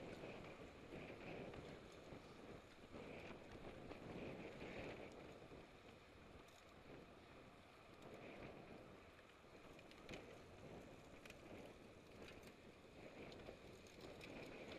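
Faint, steady wind rush over an action camera's microphone riding along with a pack of racing road bicycles, mixed with tyre and drivetrain noise, and a few sharp clicks.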